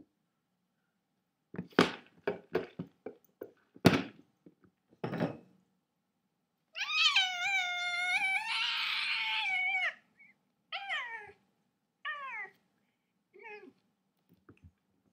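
Cat meowing: one long drawn-out meow of about three seconds, then three short meows that each fall in pitch. Before the meows, a run of sharp knocks and thumps, the loudest about four seconds in.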